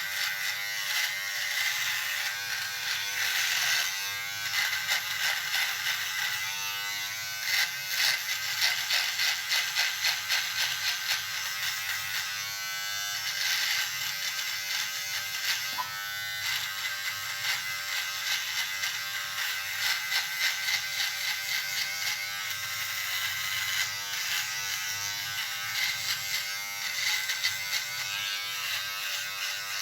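Electric shaver buzzing continuously as it is worked over stubble, the cutting sound swelling and pulsing in short rhythmic passes.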